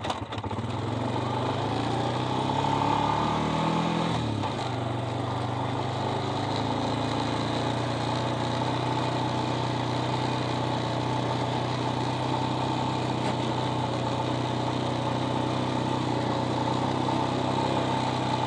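Vehicle engine pulling away, its pitch rising for the first few seconds and dropping sharply about four seconds in, then running steadily.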